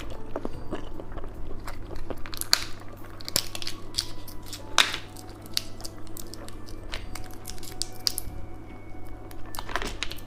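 Close-miked eating of candy: biting and chewing, with sharp crunches a few times, the loudest about five seconds in.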